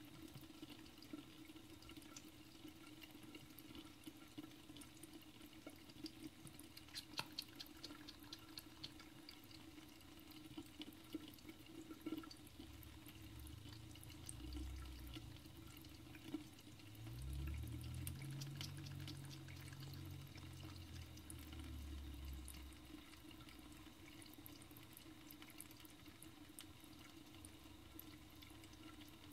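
Thin stream of water trickling steadily from a bathroom faucet into the sink, with faint clicks of a cat lapping at the stream. A low hum swells in the middle, rises in pitch, and fades out several seconds later.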